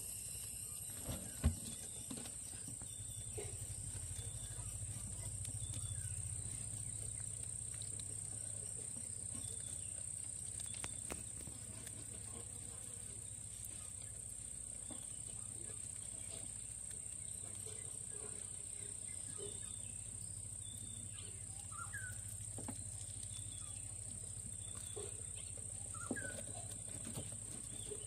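White rats feeding on a carcass: faint scattered gnawing clicks and rustles over a steady high-pitched tone and low hum, with one sharp knock about a second and a half in.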